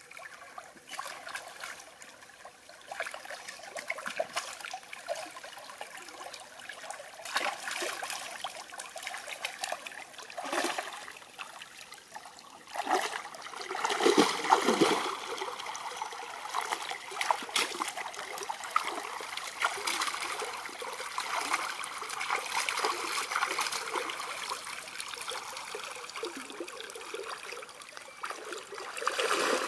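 Shallow stream water trickling and splashing as a person wades and handles things in it. Irregular splashes come through all along and get louder and busier about halfway through.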